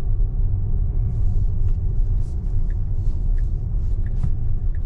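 Road and tyre rumble inside the cabin of a Tesla electric car on the move, a steady low drone with no engine sound. From near the middle, light ticks repeat about every 0.7 seconds, like the turn signal clicking ahead of a left turn.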